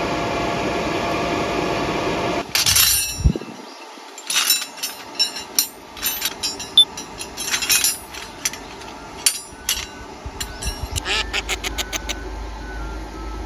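A steady machine whirr with a hum in it, which cuts off about two and a half seconds in. Then comes a series of scattered clicks and knocks, ending in a quick run of clicks.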